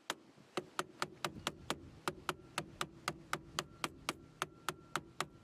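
Hammer tapping a tight-fitting Boss kit steering-wheel hub adapter onto the steering column: rapid, even strikes, about four or five a second.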